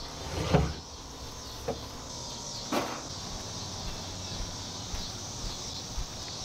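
A few sudden knocks and thumps, the loudest about half a second in, then two smaller ones, over a steady high drone of insects in the summer evening.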